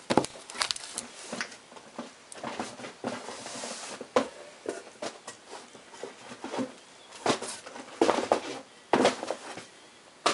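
Fingers handling the plastic shrink wrap of a sealed trading-card hobby box: irregular crinkles, ticks and scratches, with a short hissing rub about three seconds in.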